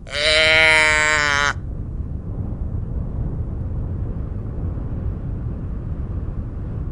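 A sheep bleats once, a single call about a second and a half long. After it a steady low rumble continues.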